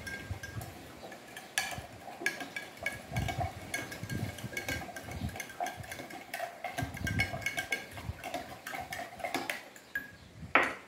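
Metal spoon stirring salt into boiling water in a glass jar, clinking against the glass again and again, each strike leaving a short ringing tone, as the salt dissolves for a brine. One louder knock near the end.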